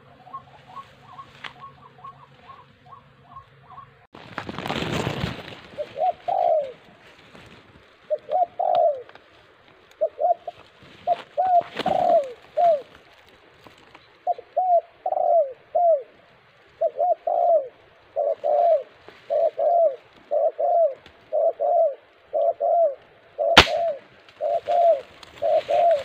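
Dove cooing over and over in short rising-and-falling coos. They start about six seconds in and later come in an even run of about three every two seconds. A burst of rustling noise comes about four seconds in, and a single sharp crack comes near the end.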